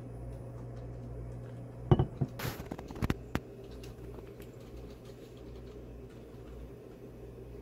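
A mug of iced coffee set down on a desk: a short cluster of knocks and clicks with ice cubes rattling inside, about two seconds in. A low steady hum runs underneath.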